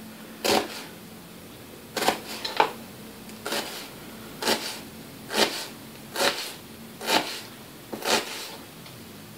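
Kitchen knife cutting through an onion down onto a plastic cutting board: about nine separate cuts, roughly one a second, each a short knock.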